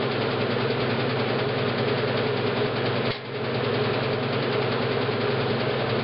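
1963 Maytag A700 washing machine running in its spin cycle: a steady motor and drive hum with the rush of the spinning basket, briefly dipping in loudness about halfway through.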